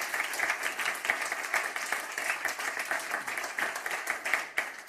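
Audience applauding: a roomful of people clapping densely, thinning out and dying away near the end.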